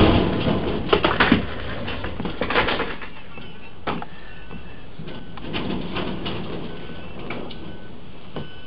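Aftermath of a box truck's cargo body striking a low railroad trestle: the crash dies away, followed by metal clattering and banging about a second in and again around two and a half seconds, then a single knock near four seconds.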